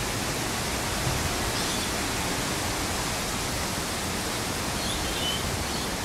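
Steady rushing noise of wind on the microphone, with a fluctuating low rumble, and a few faint short high chirps about midway and near the end.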